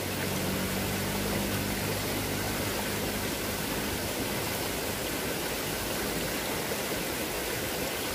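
Shallow stream water running steadily over rocks, an even rushing hiss. A faint low hum lies under it and fades out about four seconds in.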